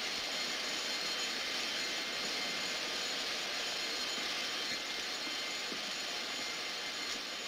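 Steady, unbroken rushing hiss of water spraying from a broken fire hydrant.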